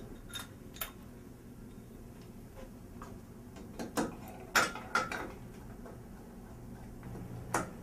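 Scattered sharp clicks and clinks of steel cap screws, washers and a hex wrench as a mounting bracket is screwed to a door. The loudest click comes about four and a half seconds in, with another near the end.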